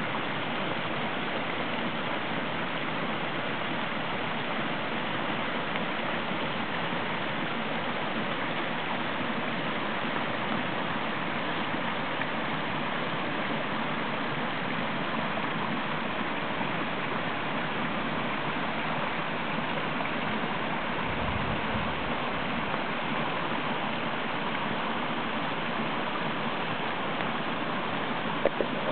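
Woodland valley stream swollen with storm runoff, near 70% of its storm capacity, rushing steadily over small cascades and riffles. A brief low rumble comes about two-thirds of the way through, and a couple of clicks near the end.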